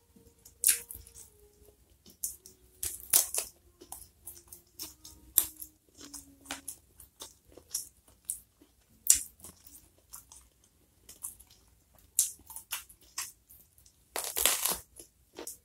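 Close-miked chewing with sharp, crackly mouth clicks, then a loud crunching bite into a raw purple eggplant about fourteen seconds in.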